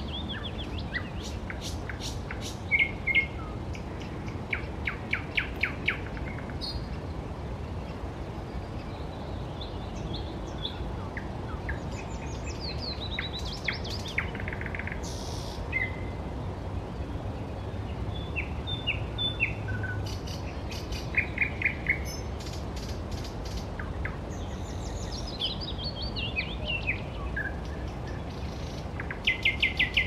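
Several songbirds singing: varied phrases of quick repeated notes, trills and falling runs, one after another every few seconds, over a steady low background rumble.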